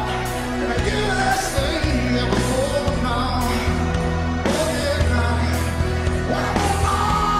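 Background pop music with a singing voice and a steady beat.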